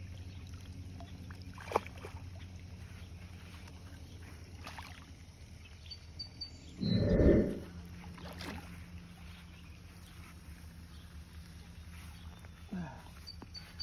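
Hooked blue catfish thrashing in the shallows at the pond bank, with one heavy splash about seven seconds in, over a low steady hum.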